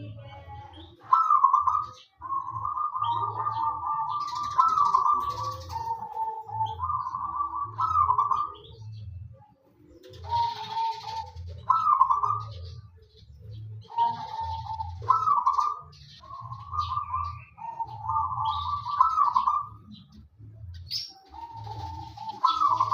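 Zebra dove (perkutut) singing, repeating short trilled cooing phrases one after another with brief pauses between them, over a low regular pulse.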